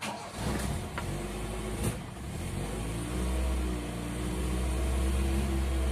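Toyota Corolla Twincam four-cylinder engine restarted after stalling, catching almost at once and running at a fast, slightly uneven cold idle. A wavering, honking tone rides over the engine: the strange noise the owner traces to a loose PCV valve and a pinched breather hose, which he likens to a squeezed trumpet.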